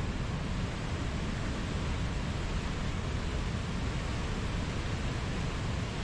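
River rapids: whitewater rushing steadily over rocks.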